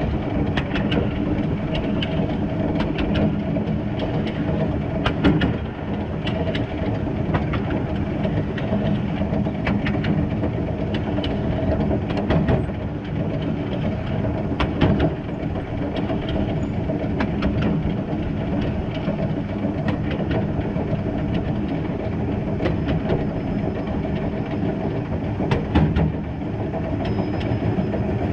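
Small narrow-gauge 0-6-0 well tank steam locomotive running along the line, heard from its front end: a steady rumble and rattle, with sharp clicks as the wheels run over the track.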